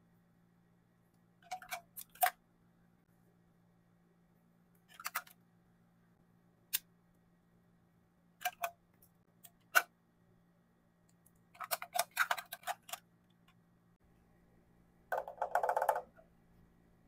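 Plastic lip gloss and liquid lipstick tubes clicking and tapping against each other and against a clear acrylic organizer as they are picked up and set in, in scattered clicks and short clusters. Near the end comes a denser rattling clatter of plastic on plastic as a clear plastic storage bin is handled. A faint steady hum runs underneath.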